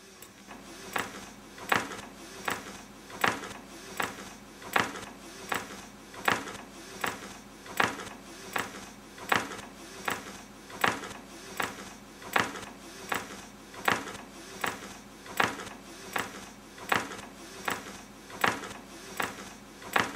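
A motor-driven wooden arm on an electric-motor demonstration rig turning steadily over a low motor hum, with a sharp knock about once every three-quarters of a second.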